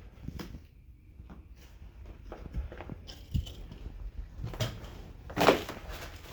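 Footsteps crunching and scuffing over debris on a floor, an irregular series of crunches with the loudest about five and a half seconds in.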